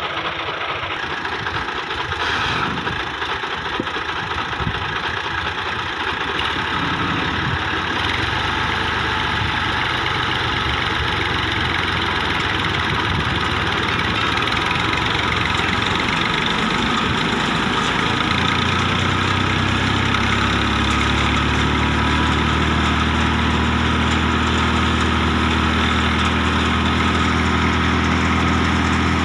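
Al-Ghazi tractor's diesel engine running steadily under load, powering a mustard thresher whose drum and fans make a constant whirring rattle. About two-thirds of the way through the engine's low, even hum comes through more strongly.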